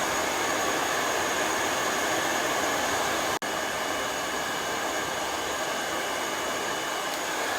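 Conair InfinitiPro hair dryer running steadily: a loud, even rush of air with a thin high-pitched whine, being tried out for heat. It cuts out for an instant about three and a half seconds in.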